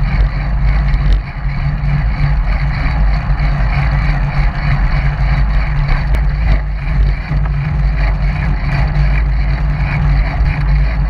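Steady wind noise buffeting the microphone of a camera on a moving bicycle, a loud, constant rumble.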